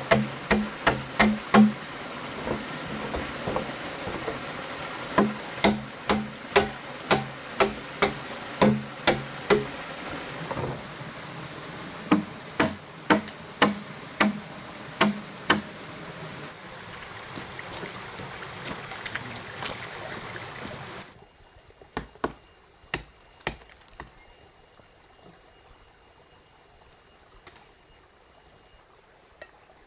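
Green bamboo being chopped with a blade: sharp strokes about two a second, each with a short hollow ring, over the steady rush of a stream. About two-thirds of the way through, the rush drops away and a few more strokes follow before it goes quiet.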